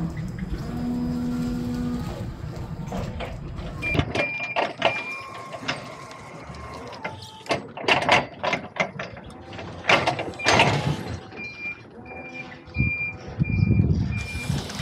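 Forklift at work: a low engine rumble at first, then clunks and knocks of forks and pallets. A high warning beeper sounds about twice a second, briefly about four seconds in and again from about ten and a half seconds on.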